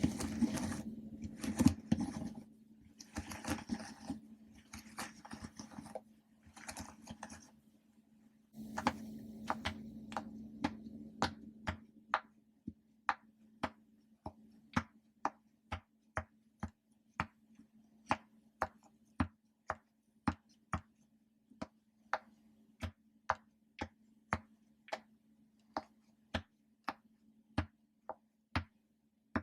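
Rustling and scraping as animal-shaped popper toys are handled, then a long run of short, sharp pops as they are pressed one after another, about two a second.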